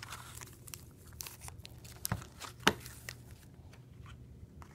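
Foil-wrapped football card packs crinkling and tapping as they are handled and laid out on a table, in scattered rustles with one sharper tap a little past halfway.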